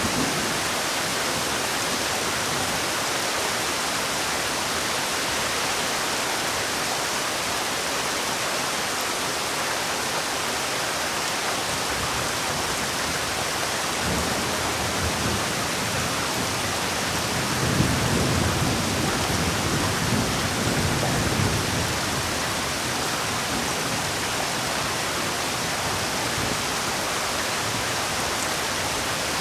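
Heavy rain falling steadily, a dense even hiss. About two-thirds of the way through, a low rumble swells and then fades under the rain.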